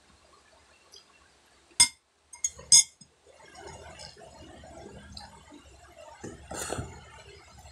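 A spoon clinking against tableware: one sharp clink about two seconds in and two more close together just after, then quieter scraping and a softer clatter near the end.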